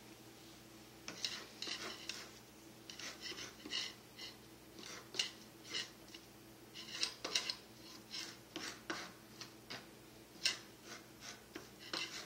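Kitchen knife chopping cilantro on a plastic cutting board: quick, irregular taps of the blade against the board in short runs, starting about a second in.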